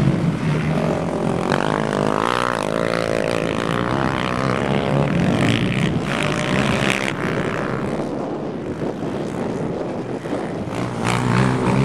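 Racing quad (ATV) engines running hard, revving up and down with the pitch rising and falling.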